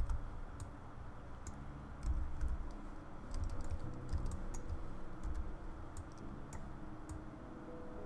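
Computer keyboard and mouse clicks, scattered and irregular, with a few dull low thumps.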